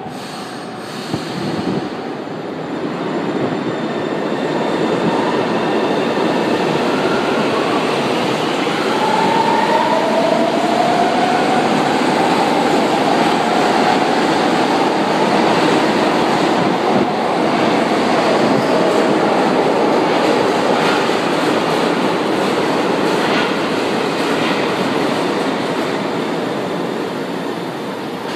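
São Paulo Metro trains moving along an underground platform, their wheels and running gear making a loud rumble that builds over the first few seconds and then holds steady. Through the middle a whine rises in pitch.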